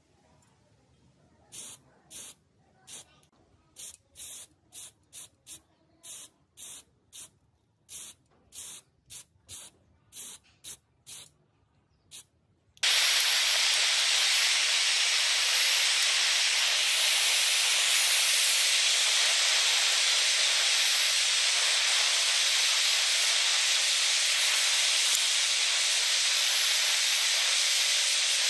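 A rapid series of about twenty short spray-paint bursts hissing onto a hanging metal part. About 13 seconds in, a gas blowtorch's flame starts hissing loudly and steadily as it heats small steel parts.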